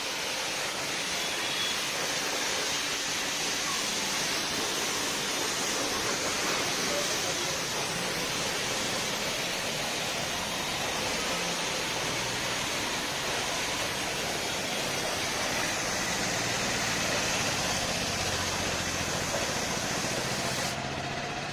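Aimex pressure washer's high-pressure water jet spraying steadily onto a motorcycle's bodywork and engine, an even hiss of water.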